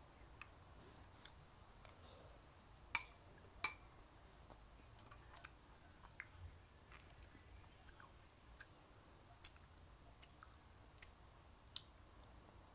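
Quiet eating sounds: a ceramic spoon clinks twice against a porcelain bowl about three seconds in, ringing briefly each time. Then come soft clicks of wooden chopsticks on the bowls, and chewing.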